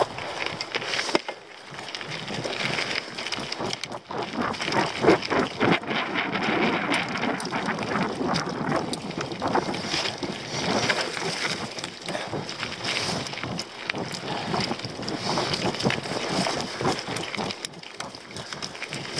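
Mountain bike rattling and clattering downhill over stones and roots, with a constant run of small knocks and wind rushing over the microphone.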